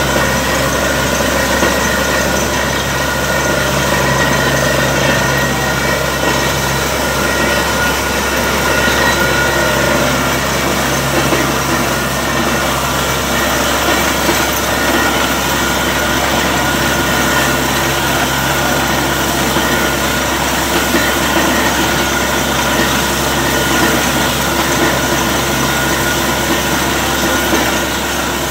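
A borewell drilling rig's engine and air compressor running steadily and loudly, with air-lifted water spraying out of the bore around the drill pipe: the bore has struck a strong water flow.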